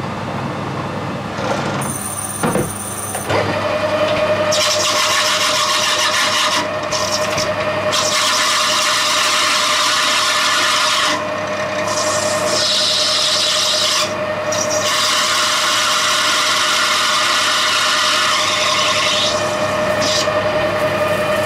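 Metal lathe turning a brass bar, the machine running with the hiss of the cutting tool on the brass. A steady hum sets in a few seconds in, and the cutting noise drops away briefly a few times.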